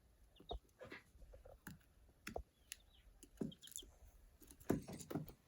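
Young Australorp–Light Brahma–Silkie cross chick giving a few short, soft peeps amid scattered light pecking clicks and rustling, with a louder scuffle of knocks near the end.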